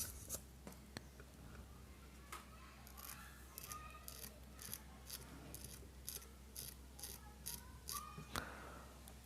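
A blade scraping insulation off a ceiling-fan wire lead in quick, faint strokes, about three a second, after a few scattered clicks.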